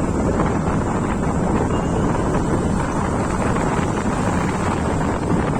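Steady wind rush buffeting the microphone of a moving scooter, with the scooter's engine and road noise rumbling underneath.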